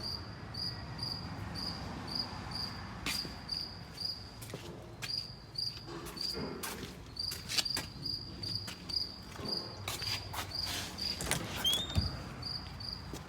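Insect, likely a cricket, chirping steadily in high-pitched pulses about three times a second, with scattered knocks and rustles over it.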